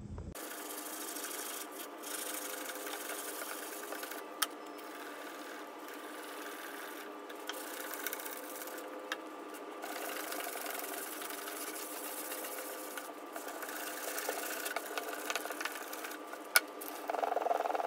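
Sandpaper on a sanding block rubbed by hand over a wooden cabinet top, giving scratchy strokes with short pauses between them, resanding the surface to smooth it before restaining. A steady hum runs underneath.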